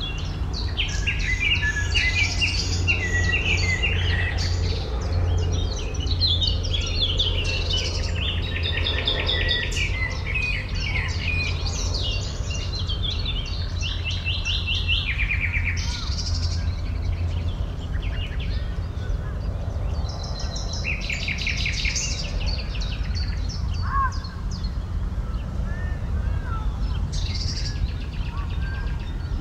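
Several songbirds singing and calling over one another, with quick trills, busiest in the first half and sparser later. Under them runs a steady low rumble.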